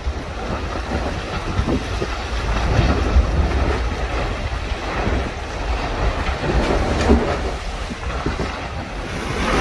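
Small fishing boat out in rough seas in a strong west wind: a steady low rumble with wind buffeting the microphone and water rushing and splashing around the hull.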